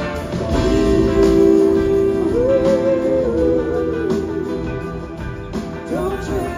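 A live rock band playing, led by an electric slide guitar. The slide guitar holds a long note, then about two seconds in slides up into a higher, wavering phrase.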